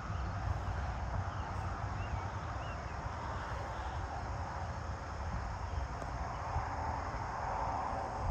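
Late-summer farm dawn ambience: a steady chorus of crickets and other insects over a low rumble, with a few faint short chirps about two seconds in.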